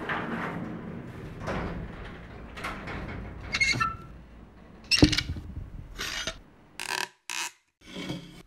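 Corrugated metal up-and-over garage door pulled down by hand, rattling and rumbling as it swings shut, with a metallic squeal and then a loud bang as it closes, followed by a few short clatters.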